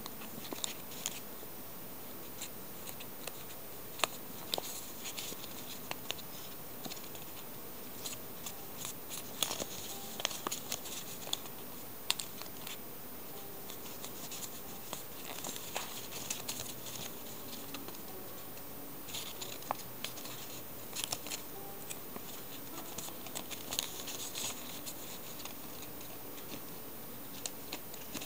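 A sheet of printer paper being squash-folded and creased by hand: irregular rustles, crinkles and small sharp clicks of the paper and fingers, coming in short clusters.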